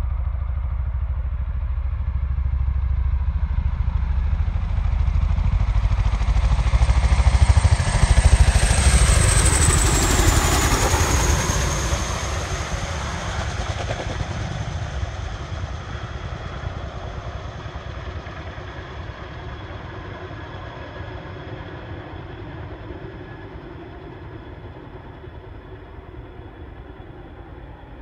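Boeing CH-47 Chinook tandem-rotor helicopter making a low pass. The chop of its two rotors and a high turbine whine grow louder to a peak about eight or nine seconds in. The whine then drops in pitch as the helicopter goes by, and the sound fades slowly as it flies away.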